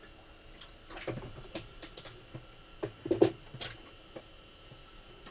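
Irregular clicks, knocks and rattles from hands handling fishing gear and a hooked sucker at the ice hole, bunched between about one and four seconds in and loudest about three seconds in.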